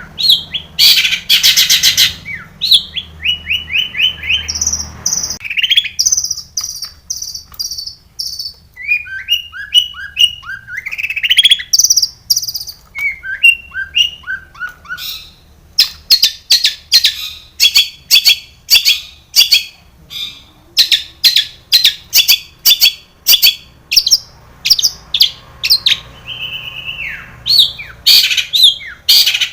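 Long-tailed shrike singing a varied, loud song full of imitated phrases: harsh notes, runs of repeated chips and high whistles, then a long stretch of rapid sharp repeated notes, with a few descending whistles near the end.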